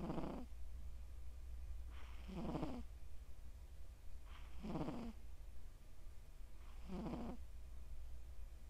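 A Scottish Straight cat snoring in its sleep: four loud snores a little over two seconds apart, each dropping lower toward its end, over a steady low hum.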